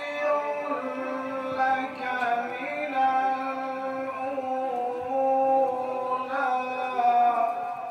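A man's voice chanting in long, drawn-out notes that slide from pitch to pitch, without instruments.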